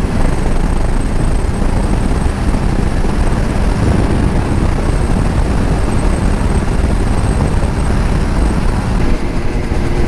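Steady wind rush buffeting the microphone of a motorcycle riding at road speed, with the bike's running noise beneath it.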